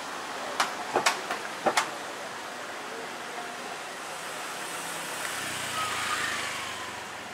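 Street traffic noise with a motorbike passing close by, getting louder and then fading about five to seven seconds in as its engine note falls in pitch. A few sharp clicks come in the first two seconds.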